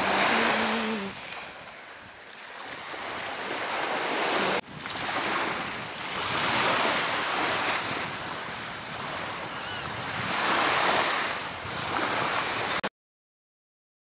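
Small sea waves breaking and washing up on a sandy beach, the surf swelling and ebbing every few seconds. The last notes of music fade out in the first second, and the sound cuts off abruptly near the end.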